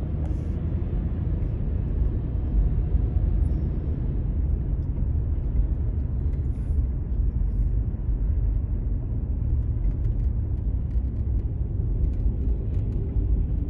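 Steady low rumble of a car's engine and tyres heard from inside the cabin while driving at low speed.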